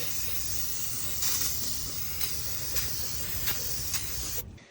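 Aerosol can of brake cleaner spraying in one steady hiss onto the new brake rotor to strip its anti-rust oil coating, cutting off suddenly near the end.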